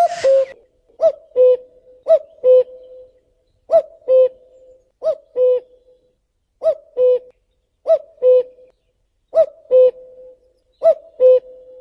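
Common cuckoo (Cuculus canorus) calling its two-note "cuck-oo": a short higher note dropping to a longer, lower one. The call repeats about eight times at an even pace, roughly one every second and a half.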